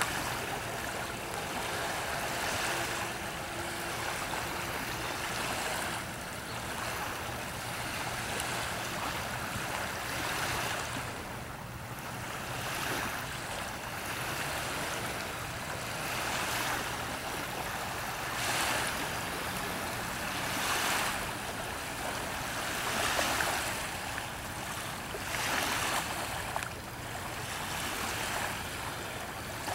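Small waves lapping and washing, swelling and easing every few seconds.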